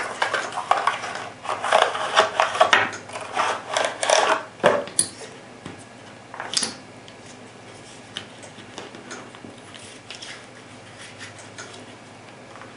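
Cardboard cartridge box being opened and a plastic ammunition tray slid out of it: dense rustling, scraping and clicking for about the first five seconds, then a few light clicks as the tray of cartridges is handled.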